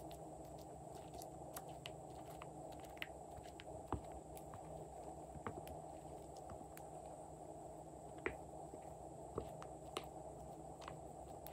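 Faint, irregular small clicks and squishes of slime being handled and mixed, over a steady low hiss.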